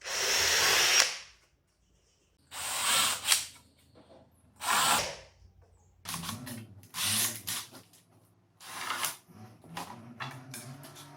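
Handheld power drill run in about six short bursts, its motor speeding up and slowing again between them.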